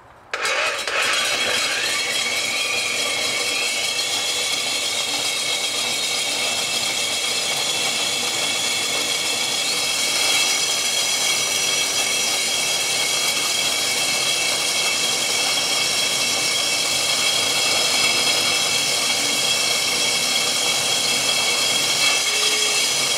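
SDS drill, hammer action off, turning a 4-inch diamond core bit as it starts its cut into a concrete block wall under light pressure: a steady motor whine with grinding. The drill starts about half a second in, its whine rising over the first few seconds as it comes up to speed.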